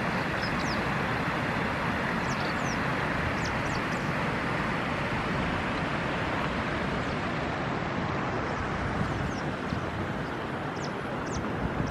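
Steady rushing outdoor noise, with faint short high chirps scattered through it.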